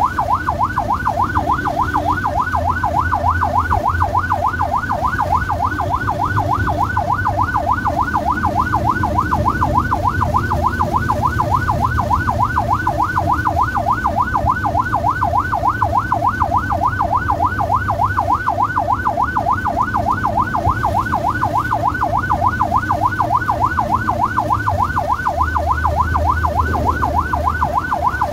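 Ambulance siren in a fast yelp, its pitch sweeping up and down about three to four times a second without a break, over the low rumble of the ambulance's engine.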